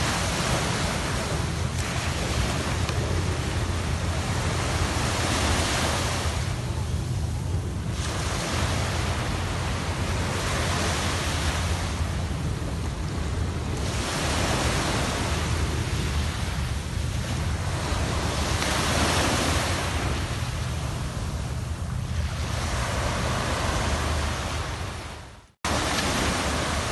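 Sea surf washing onto a beach, swelling and easing with each wave every few seconds, over a steady low rumble of wind on the microphone. The sound cuts out for a moment near the end.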